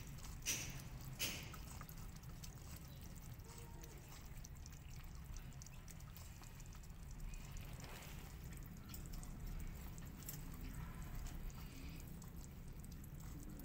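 Cats and kittens eating wet cat food from a plate: faint wet chewing and lapping with small irregular clicks, a couple of them sharper near the start, over a low steady rumble.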